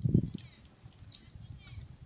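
Faint chirping of small birds, several short calls gliding up and down, over a quiet rural background, with a brief low rumble at the very start.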